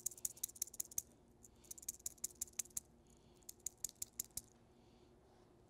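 Needle roller bearing for a tire-carrier spindle, turned by hand through a palmful of grease to pack it: faint, quick, sticky clicking in three bursts of several ticks each, stopping a little before the end.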